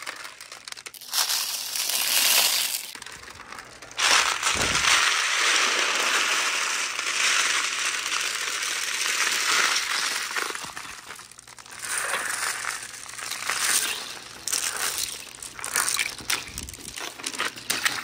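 A mass of glass marbles and billiard balls rolling and clattering against one another down a pegboard chute and tumbling into a glass tank of water and water beads. A short burst comes about a second in, a long dense rattle runs from about four seconds to ten, then shorter bursts follow.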